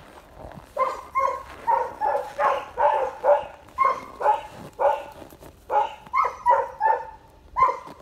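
West Siberian laika barking: a steady run of short barks, two or three a second, starting about a second in and going on for some seven seconds.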